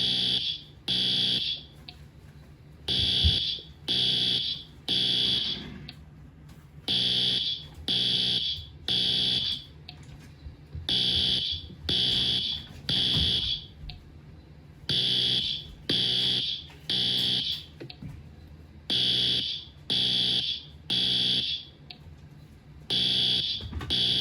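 Smoke alarm sounding the temporal-three fire evacuation signal: three loud, high-pitched beeps about a second apart, then a pause of about a second and a half, repeating about every four seconds.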